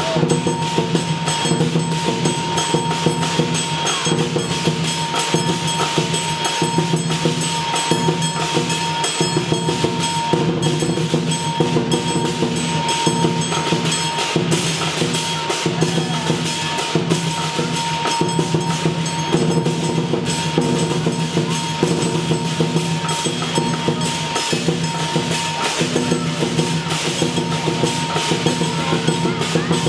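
Lion dance accompaniment: a Chinese lion drum beaten in fast, continuous patterns with clashing cymbals, played for the dancing lion.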